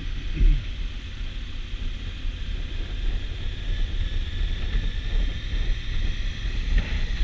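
Wind rushing over the microphone on a Honda Africa Twin CRF1000L motorcycle at road speed, a steady low rumble with its parallel-twin engine running underneath.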